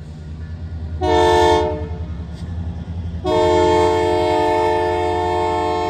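Canadian Pacific diesel freight locomotives sounding their multi-chime air horn at a road crossing: a short blast about a second in, then a long blast from just past the middle that is still going at the end, over the low rumble of the diesel engines.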